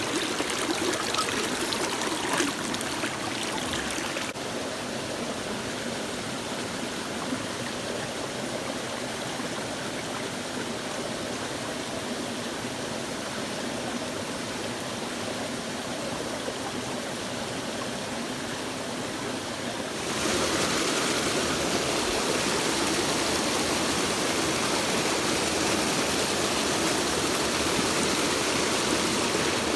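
Mountain stream water rushing steadily over rocks; it drops a little in level about four seconds in and grows louder again about two-thirds of the way through.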